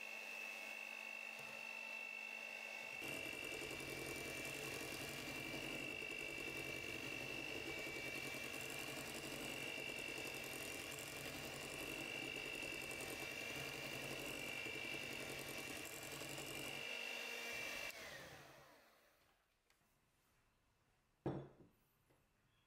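Electric hand mixer running steadily with a high motor whine, its beaters churning butter, sugar and egg in a glass bowl. About three seconds in, a lower churning joins the whine. Near the end the motor winds down and stops, followed by a single sharp knock.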